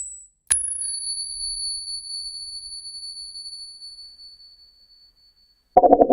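A coin is struck once and rings with a clear, high, bell-like tone that slowly fades over about four seconds. Near the end a lower, rattling noise starts suddenly.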